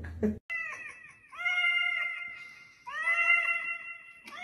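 Calico cat yowling into a karaoke microphone: three long, drawn-out calls at a steady pitch, coming out through the microphone's speaker with an echo effect.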